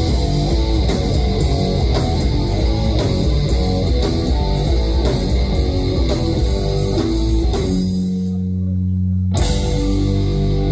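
Rock band playing live, with loud electric guitars, bass guitar and drum kit. About eight seconds in, the drums drop out and the band holds one chord for a second and a half, then crashes back in.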